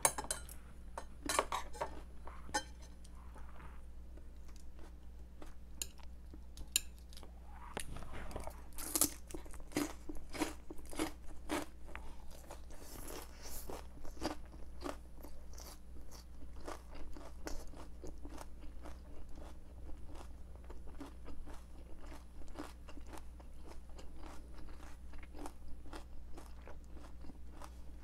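Crisp vegetables being chewed close to a clip-on microphone: many quick, wet crunches, coming thicker from about nine seconds in.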